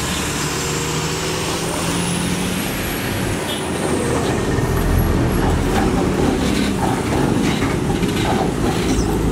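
Heavy Ashok Leyland truck hauling a long wind-turbine tower on a multi-axle trailer passing close by: its diesel engine hums steadily, then a low rumble of engine and wheels grows louder about four seconds in. A faint high whine rises and falls over it.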